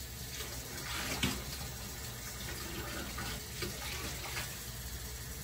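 Lukewarm water being poured into a bowl of einkorn flour and stirred in with a spatula, an uneven wet splashing and scraping, with one sharper knock about a second in.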